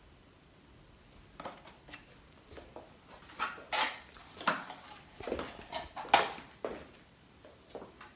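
Irregular rustles, light knocks and clinks of things being handled, starting about a second and a half in. A glass candle jar is set down on a metal tray lined with crinkly paper, and a small paper or card package is handled.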